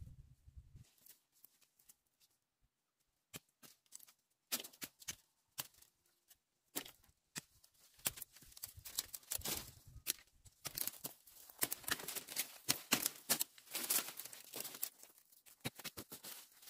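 Dry twigs, stems and leaves crackling and snapping as a person works and moves through brushy undergrowth: an irregular string of sharp cracks and rustles that starts about three seconds in and grows denser toward the end.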